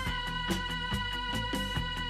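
Instrumental rock music: sustained keyboard chords over a steady drum beat of about four hits a second, with no singing.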